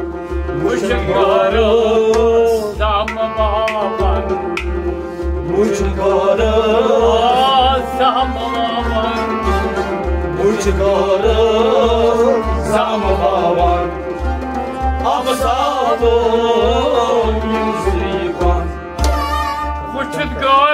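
Kashmiri Sufi music: a harmonium playing a sustained melody over a steady hand-drum beat, with a bending, ornamented melodic line above it.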